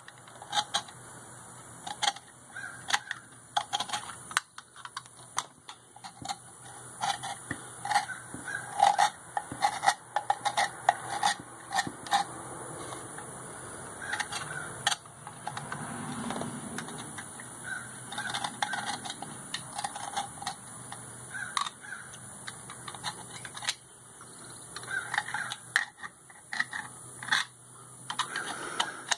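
Flat metal scraper blade scraping old gasket material off the thermostat housing flange of a John Deere 2155 tractor, in many quick, short, irregular strokes: cleaning the gasket face so the new thermostat seals.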